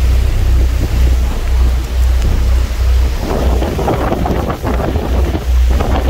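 Tour boat underway: wind buffeting the microphone over a low steady rumble and the rush of the churning wake, which grows louder about halfway through.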